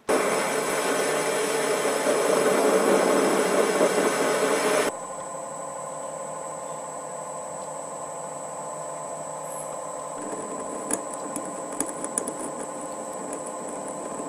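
MN-80 bench lathe running and machining a small steel disc, loud and grainy for the first five seconds, then dropping abruptly to a steadier running sound as a drill in the tailstock chuck bores the centre hole, with a few light ticks near the end.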